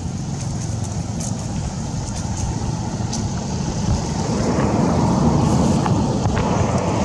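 A motor vehicle's engine running steadily, a low rumble that grows louder about four seconds in.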